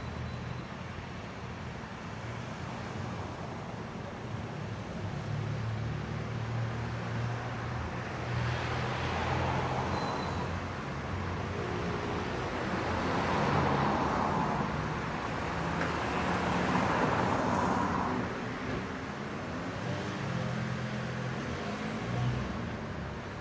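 City street traffic: a steady low hum of running engines, with vehicles passing by in broad swells of tyre and engine noise, the loudest about thirteen and seventeen seconds in.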